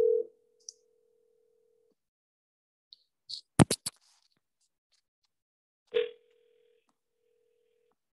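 Telephone ringback tone of an outgoing call that is not yet answered, heard through the computer's call audio: a steady tone rings for about two seconds, pauses for about four, then rings again. A short cluster of sharp clicks falls in the pause.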